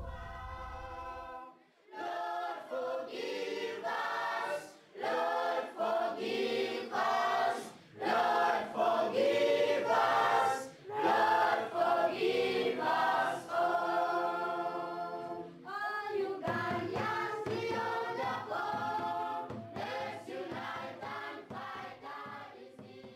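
A choir singing in phrases with short pauses between them, fading out near the end.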